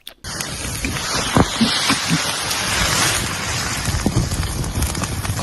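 Wind buffeting the microphone: a loud, steady rushing noise with low rumble and a few faint knocks, starting suddenly about a quarter second in.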